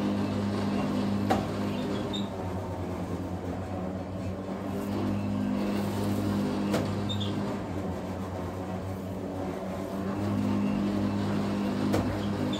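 A steady low mechanical hum, with three sharp clicks of a knife against a plastic cutting board while raw geoduck siphon is sliced: about a second in, in the middle and near the end.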